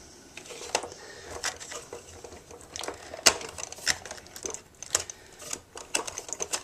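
Irregular light clicks and taps of a miniature tool chest bank and its small parts being handled, the sharpest about three seconds in.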